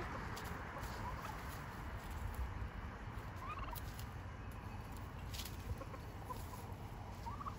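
Domestic turkeys feeding, giving a few faint, short calls over a steady low background hiss, with light scattered clicks.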